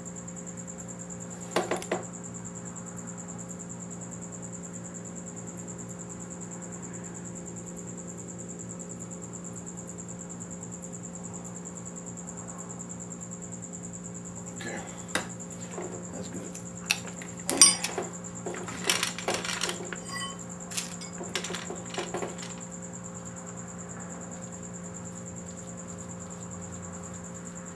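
Small metal engine parts clink and tap as they are handled and fitted to an engine block. There are a few clicks near the start and a longer run of irregular sharp clinks around the middle. A steady low hum sits underneath.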